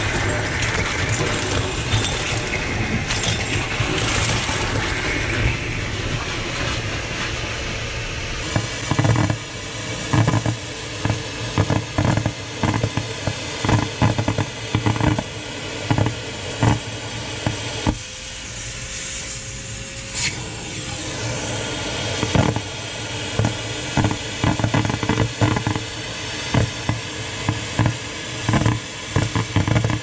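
Vacuum cleaner running steadily as its nozzle sucks small decorations out of glass dishes. After the first several seconds, many quick irregular clicks and knocks come as gold beads are pulled into the hose and rattle against the glass.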